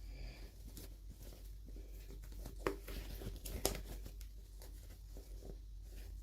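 Small toy packaging being handled and torn open: scattered crinkles and light clicks, with two sharper clicks near the middle, over a steady low hum.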